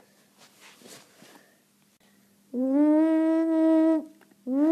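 A child's voice wailing two long, steady held notes, the first starting about halfway through and the second near the end, each sliding up slightly at the start.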